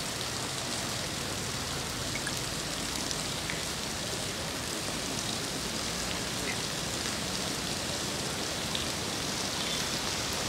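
Rain falling steadily on floodwater, an even hiss.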